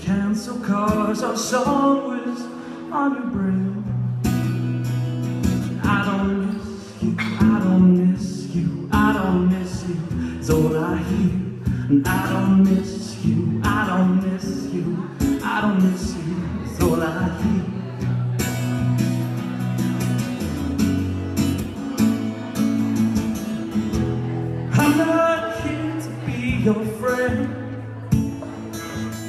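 A man singing a song live, accompanying himself on a strummed acoustic guitar.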